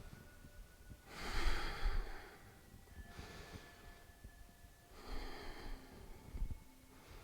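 A person breathing audibly through the nose while holding a yoga pose: two long, airy breaths, the first about a second in and the second about five seconds in.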